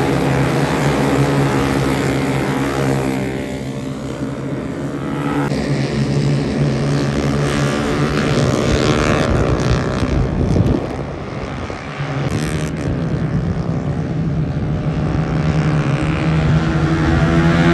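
Racing motorcycle engines running at high revs, with one bike sweeping past in a rise and fall of pitch about ten seconds in.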